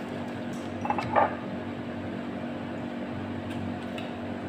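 Tableware handled at a meal table: two quick clinks about a second in, over a steady low hum in the room.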